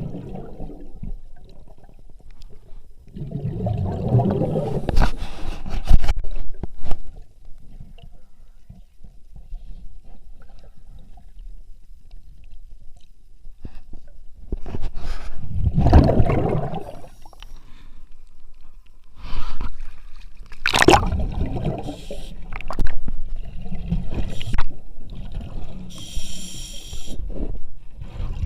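Water gurgling and sloshing in uneven bursts, with knocks and clatter between them, and a brief high squeal near the end.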